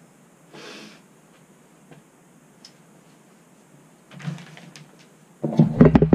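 Faint workshop rustling with a short scrape about half a second in, then loud, rapid knocking and clatter near the end as the camera is picked up and handled.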